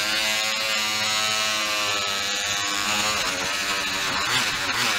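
Cordless oscillating multi-tool running with a microfiber cloth over its blade, buffing aluminum motorcycle cylinder fins: a steady electric buzz whose pitch wavers briefly about four seconds in.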